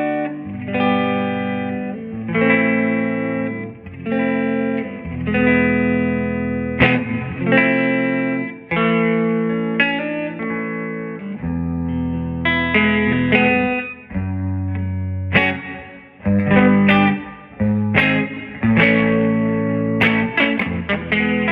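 Electric guitar, a Telecaster, played through a Bugera V22 tube amp and a 1960 Rola Alnico 5 12-inch speaker: a run of ringing chords changing every second or two, with sharper picked notes in the second half.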